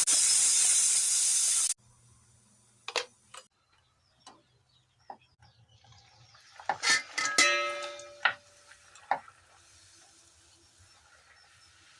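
A loud steady cooking hiss of steam or sizzling cuts off abruptly near two seconds in. Then come scattered light clicks of metal utensils, and a cluster of clinks and a ringing clang from steel cookware about seven seconds in.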